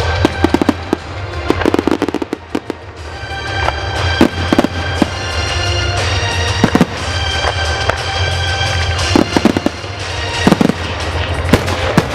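Professional display fireworks going off: repeated sharp bangs and crackles, in clusters and some in quick succession, over loud music.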